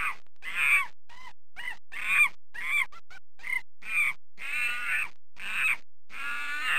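Monkey calling in a rapid series of short calls that arch up and down in pitch, just under two a second, with a few longer calls near the end.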